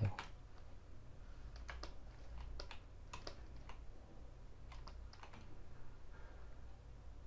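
Scattered clicks of computer keys and buttons being pressed at an uneven pace, over a low steady hum, with a dull thump right at the start.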